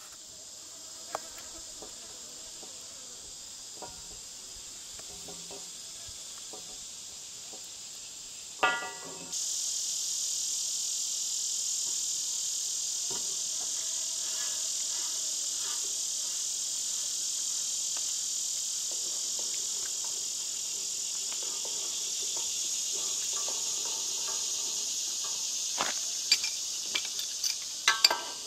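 Steady high-pitched drone of insects, growing louder about nine seconds in. A short squeak comes just before the rise, and a few sharp clinks near the end.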